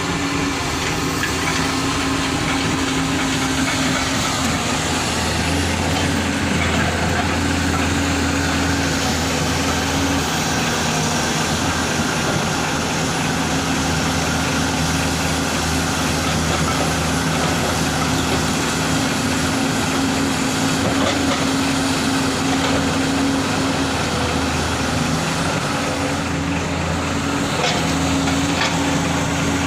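Komatsu 210 excavator's diesel engine running steadily with a deep, even hum.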